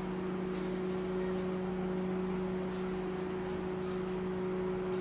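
Microwave oven running while it melts butter: a steady electrical hum with a few faint ticks.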